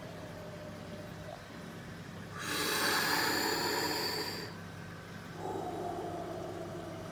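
A person breathing heavily and noisily close to the microphone: one loud, hissing breath lasting about two seconds, then a quieter, lower breath about a second later, over a steady low hum.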